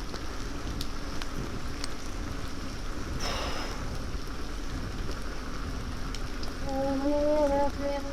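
Steady rain-like hiss with a low wind rumble and scattered faint clicks. A short burst of noise comes a little over 3 s in, and a pitched tone lasting about a second comes near the end.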